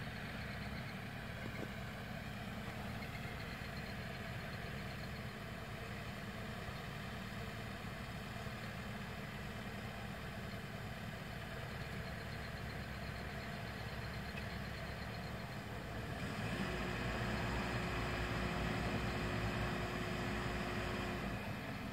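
Cat 311F excavator's diesel engine running steadily while the machine works. About three quarters of the way through it works harder and louder, with a steady whine for about five seconds, then settles back.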